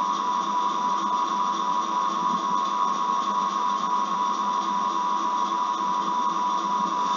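Steady hiss with a constant high whine, and a faint regular pulsing beneath it.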